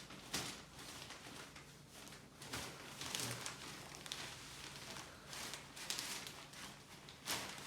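Irregular soft rustling and rubbing strokes from hands working over a patient's back and clothing during soft-tissue massage, over a faint low steady hum.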